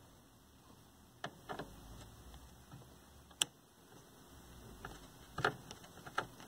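Screwdriver turning out a screw in a TV chassis: a few separate light clicks and ticks of the tip on the screw head and metal, one sharper click about halfway and a small cluster of the loudest clicks near the end.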